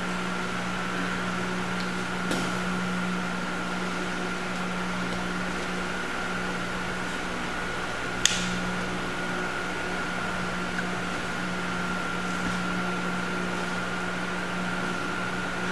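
Steady electric hum and whir of a wall-mounted fan, with a sharp click about eight seconds in and a fainter one about two seconds in.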